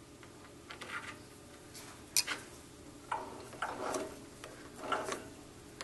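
Light metallic clicks and taps from handling a small steel sleeve and a hex key on the lathe, with one sharp click about two seconds in and softer rattling handling sounds after it.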